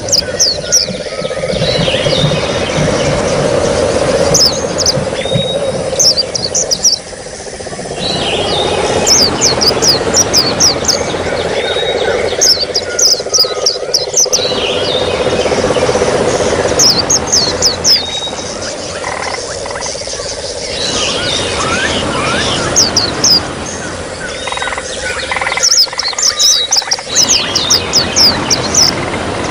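Trickling water with a small songbird's high chirping phrases recurring about every four seconds: a lure recording of the kind played to coax caged white-eyes into song.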